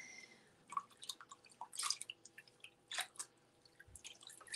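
Faint drips and small splashes of water as a washcloth is rinsed in a bowl of water.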